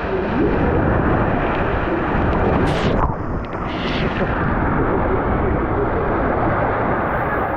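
Rushing water and wind buffeting the microphone of a camera riding down a water slide: a loud, steady rumbling rush whose high hiss dulls about three seconds in.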